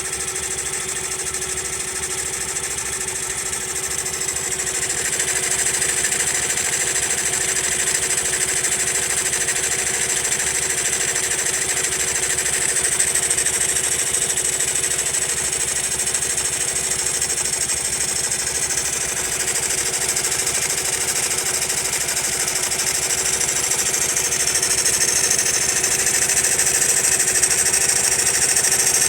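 Honda Monkey's small single-cylinder four-stroke engine running at idle with a persistent abnormal mechanical noise that a tappet (valve clearance) adjustment has not cured. It gets a little louder about five seconds in and again near the end.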